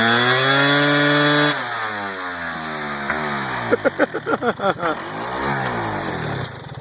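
GasGas EC300's 300cc two-stroke single-cylinder engine held at high revs during a rear-tire burnout, dropping off about a second and a half in, then blipped several times in quick succession before the revs die down near the end.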